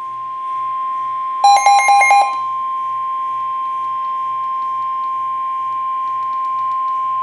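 NOAA Weather Radio warning alarm tone: a single steady high tone near 1 kHz, held throughout and signalling that a warning broadcast follows. About a second and a half in, a short burst of rapid beeps sounds over it for under a second.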